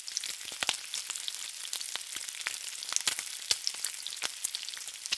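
Steady crackling hiss dotted with many sharp, irregular pops and clicks, like food sizzling in hot oil.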